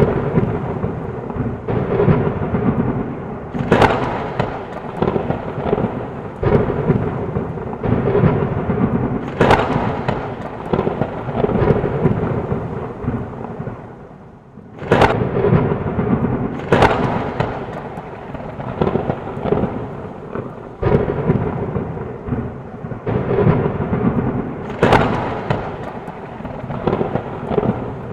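Thunderstorm: rain with rolling thunder and repeated sharp cracks every second or two. The rumble drops away briefly a little before halfway, then a loud crack starts it again.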